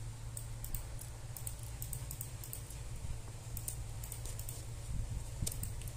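Paper wrapping on a small box crinkling while a knife blade scratches and cuts through it: a scatter of short, crisp clicks and scratches over a low steady hum.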